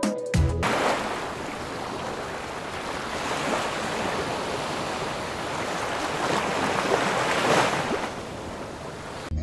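Surf washing onto a sandy beach: a steady rush of waves that swells twice, once about three and a half seconds in and again near the end, then cuts off.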